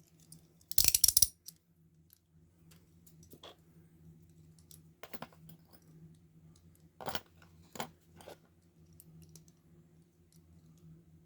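Handcuffs being put on: a quick run of metal ratchet clicks about a second in, followed by a few single metallic clicks and knocks.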